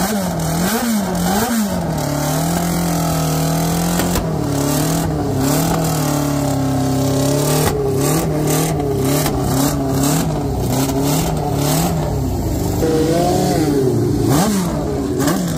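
Ford Cosworth DFV V8 of a classic McLaren Formula 1 car running at a fast idle, its revs rising and falling in repeated throttle blips, with a sharper blip near the end.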